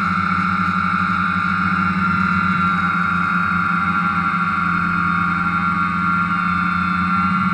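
DJI Phantom quadcopter's motors and propellers humming steadily in flight, a constant whine of several fixed pitches.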